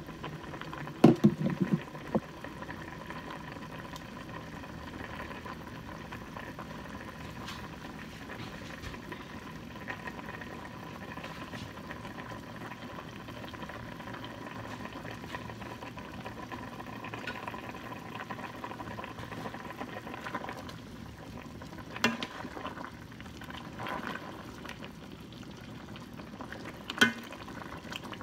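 A large stainless steel stockpot of Malaysian bak kut teh herbal soup bubbling steadily on the stove. A few sharp knocks sound over it, the loudest about a second in and another near the end.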